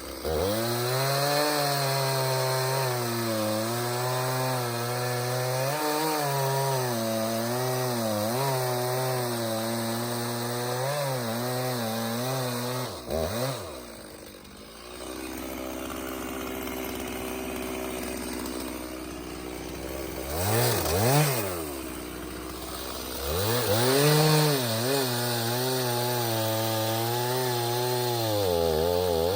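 Stihl 391 two-stroke chainsaw sawing red oak, its engine note wavering and dipping under load in the cut. About halfway through it comes out of the wood and runs lighter for several seconds, then revs up sharply and goes back into the cut.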